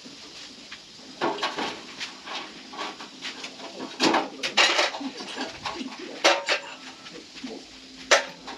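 Metal tools and parts clinking and clanking at irregular intervals, with a few sharper clanks through the middle and near the end.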